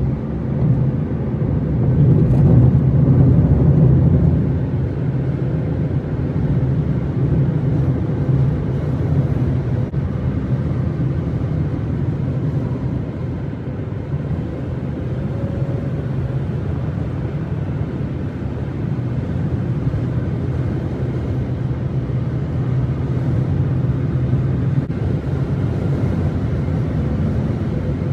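Steady drone of a car driving at highway speed, heard from inside the cabin: tyre and engine noise, a little louder about two to four seconds in.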